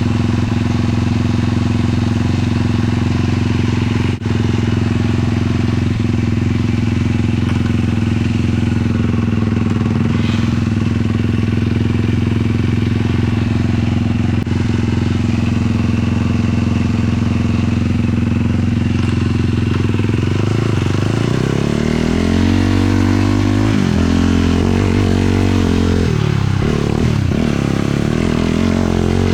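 450 single-cylinder sport quad engine running at a steady pitch while cruising. Near the end its pitch swings up and down repeatedly with throttle changes.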